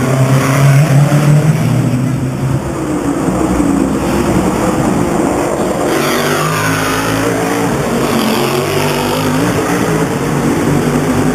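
Race cars running at speed, engines passing one after another with their pitch rising and falling; about six seconds in, one car sweeps past with a falling pitch.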